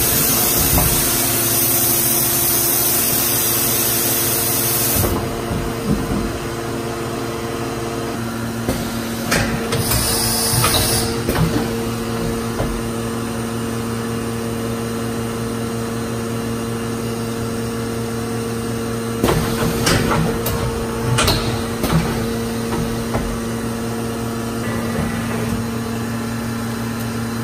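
Mazak FF-510 horizontal machining center blowing compressed air with a loud hiss for about five seconds, then its automatic tool changer working with several metallic clunks and a short second burst of air, over the machine's steady hum.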